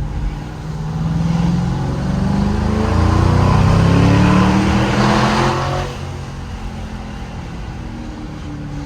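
2006 Ford Mustang GT's 4.6-litre V8 through a Corsa Extreme axle-back exhaust, accelerating hard in second gear with the note rising in pitch and loudness. About six seconds in the throttle lifts and the exhaust drops to a lower, steadier note.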